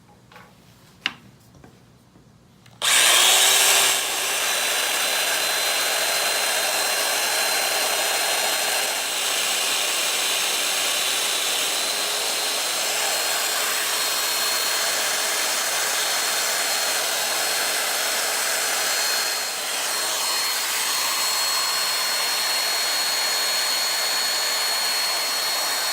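A click about a second in, then a Festool Domino joiner starts up with its dust extractor and runs steadily with a thin high whine while plunge-cutting mortises in a wooden sawhorse leg, loudest in its first second.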